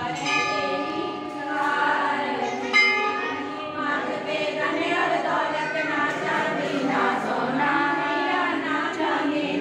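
A group of women singing an aarti, a Hindu devotional hymn to the goddess, together in chorus, with one sharp ring about three seconds in.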